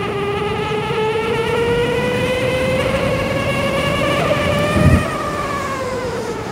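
Leaperkim Lynx electric unicycle's motor whining under hard acceleration, its pitch rising steadily for about four seconds, then dipping slightly near the end. A brief low thump comes about five seconds in.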